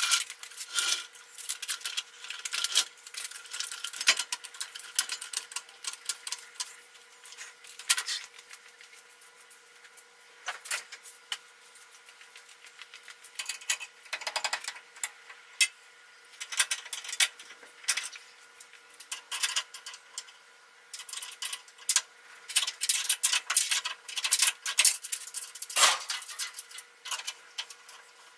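Light metallic clicking and clattering of hand tools and metal parts being worked on a pickup's bare steel frame, in irregular runs of quick ticks with pauses between, the busiest run in the last several seconds.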